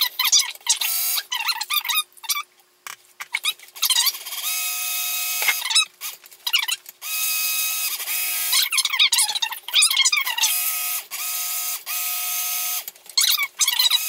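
Immersion stick blender running in repeated short bursts, switched on and off several times, its blade churning soap batter (lye solution and oils) as it emulsifies for hot-process soap.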